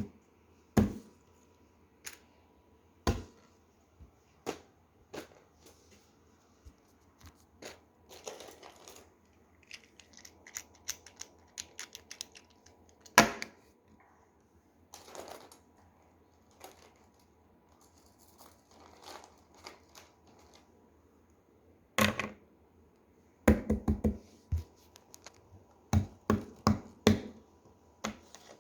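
Fidget toys and their plastic wrapping being handled close up: scattered sharp clicks and knocks with stretches of crinkling and scratching, and a quick run of knocks about two-thirds of the way in.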